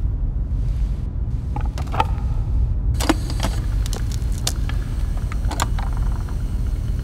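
A turntable being readied: a low, steady rumble with scattered clicks and small knocks as a vinyl record is set on the platter and the tonearm is lowered toward the spinning disc.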